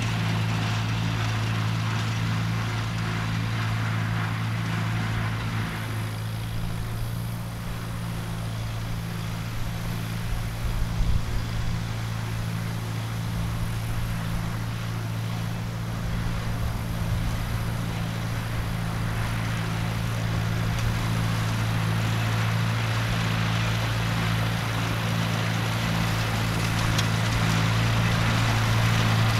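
1948 Farmall Cub's four-cylinder flathead engine running steadily under load, driving its mid-mounted mower through cut brush. A few brief louder thumps come about a third of the way in, and the engine grows louder near the end as the tractor comes closer.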